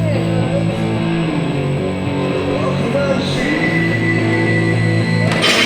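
Guitar-driven rock music with steady held notes and a bass line, and a loud crash-like burst near the end.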